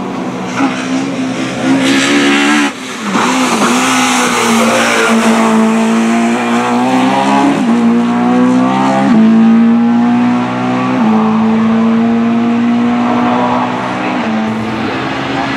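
BMW 320i E21 race car's tuned 2.0-litre M42-based four-cylinder on individual throttle bodies, revving hard as it climbs the course. Its pitch climbs and then drops sharply at each of several upshifts.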